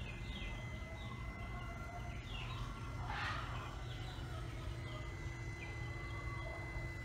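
Birds chirping over and over, with one louder call about three seconds in, over a faint steady whine from the ChickenGuard door opener's motor winding the pop door up on its string.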